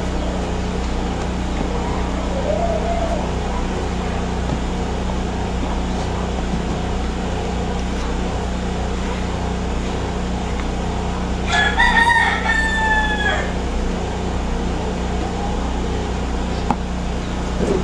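A rooster crows once, a call of about two seconds that falls slightly in pitch at the end, over a steady low background hum.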